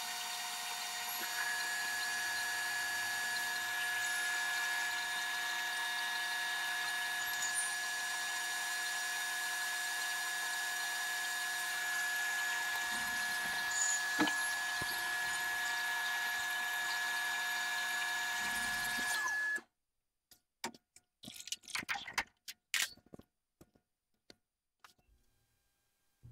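Metal lathe running, its gear train giving a steady whine, while it machines the back face of a stainless steel part; a steady high-pitched tone joins about a second in. It all stops abruptly about three-quarters of the way through, followed by a few scattered clicks and knocks of handling.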